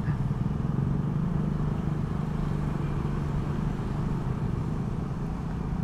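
Honda PCX 160 scooter's single-cylinder engine running with a steady hum at low speed in traffic, under low wind and road noise.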